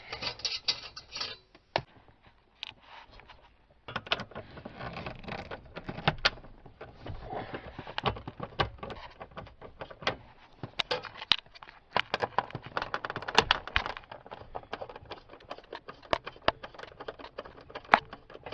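Hand tools and small bolts clicking, rattling and scraping against plastic dash trim as it is unbolted: an irregular run of clicks and taps starting about four seconds in after a brief quiet stretch.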